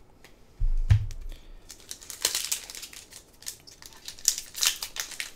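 A low thump with a sharp knock about a second in, then the foil wrapper of a Pokémon TCG booster pack being torn open and crinkled, a dense run of crackling from about two seconds in.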